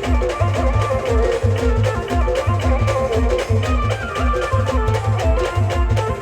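Live band music, an instrumental passage: a heavy bass drum beat keeps a steady rhythm under a melody.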